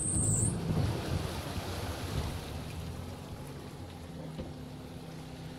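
Water rushing and sloshing around an off-road vehicle fording deep water, fading over the first few seconds, with the engine running steadily low underneath. A short high whine stops about half a second in.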